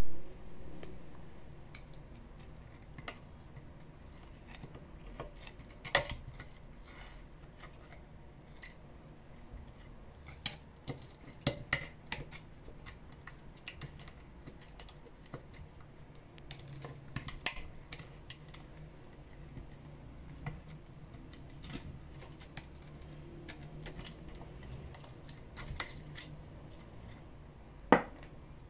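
Irregular metal clinks and knocks of hand tools and pump parts being handled, with a loud knock at the start, another about six seconds in, and one near the end.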